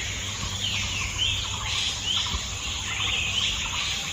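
Birds chirping: short swooping calls repeated every half second or so.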